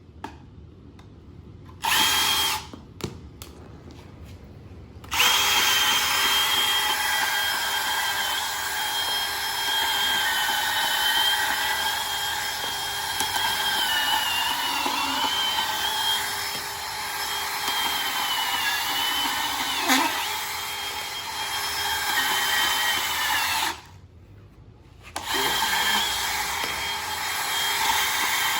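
Electric bandsaw cutting through thick copper cable, its motor whine sagging in pitch as the blade bites and recovering between cuts. After a brief run it starts again a few seconds in, stops near the end, and starts up once more about a second and a half later.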